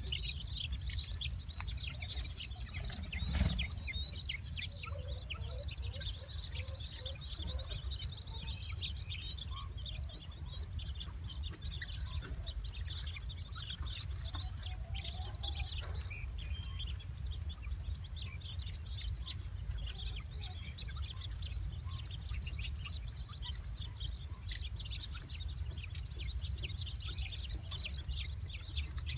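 King quail chicks, four days old, peeping in a steady stream of short, high chirps, with now and then a lower, softer call. A steady low rumble runs underneath.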